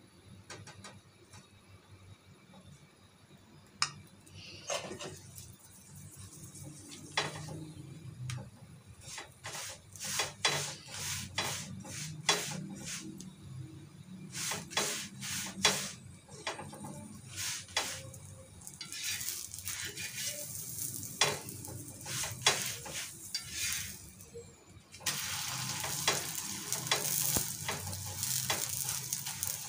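Lachha paratha frying in ghee on an iron tawa: a sizzle with a metal spatula repeatedly tapping and scraping against the griddle and the bread. The sizzle grows clearly louder about 25 seconds in.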